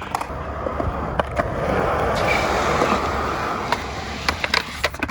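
Skateboard wheels on freshly fitted wheels and bearings rolling over concrete, a steady rolling hiss that swells and fades, with a few sharp clicks.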